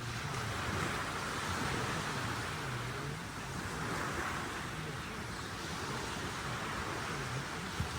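Sea waves washing onto the shore: a steady rushing surf that swells and eases every few seconds, with a faint low hum beneath it.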